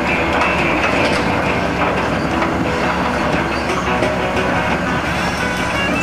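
Background music over the engine and clanking steel tracks of a crawler construction machine driving down a lowboy trailer's loading ramps.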